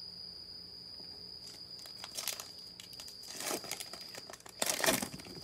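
Foil trading-card pack being torn open and crinkled by gloved hands: three short bursts of crackling about a second apart, the last loudest. A cricket keeps up a steady high trill behind it.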